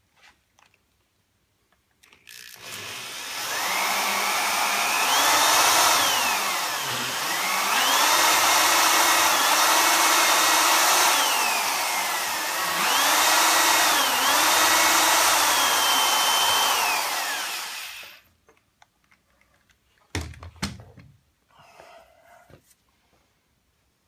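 Corded electric drill boring a 1/4-inch pilot hole into a wooden bench frame, the motor whine dipping and rising in pitch several times as the trigger is eased and squeezed, running for about sixteen seconds before cutting off. A short dull thump follows a couple of seconds later.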